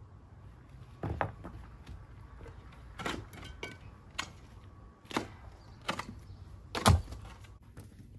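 About half a dozen sharp, irregular knocks and clunks of stonework, stones or tools striking, spaced a second or so apart; the loudest comes near the end.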